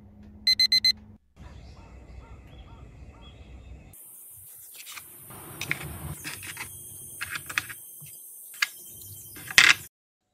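A digital alarm clock beeping, a quick burst of four high beeps. Then, over a steady hiss, scattered small metallic clicks and clinks of metal accessories being handled on a wooden tray, with the sharpest click near the end.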